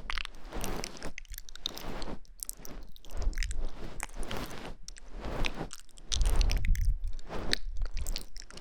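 Close-miked ASMR trigger sounds: many irregular soft wet clicks and crackles, with a low rumble on the microphone about six seconds in.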